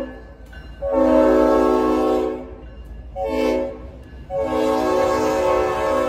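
Leslie RS5T five-chime air horn on a passing freight locomotive sounding the close of a grade-crossing signal: a long blast, a short one, then a long blast begun just past the middle and held, a steady multi-note chord.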